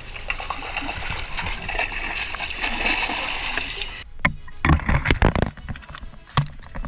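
Seawater sloshing and hissing, then, from about four seconds in, several heavy splashes and thumps as a gaff goes into the water and a kingfish thrashes beside the boat.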